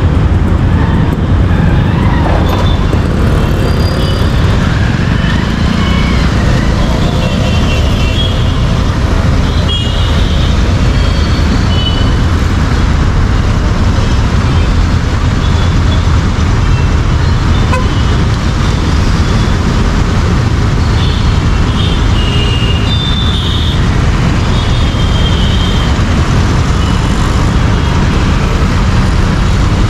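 Royal Enfield Interceptor 650's parallel-twin engine and exhaust running steadily while riding through traffic, with surrounding traffic noise and short horn toots now and then.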